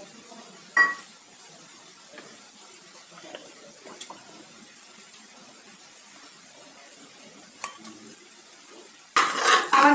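A steel spoon clinks against a steel bowl with a short metallic ring, then a few light ticks over a faint steady hiss. Near the end, a louder clatter of a metal spoon in a cooking pan starts.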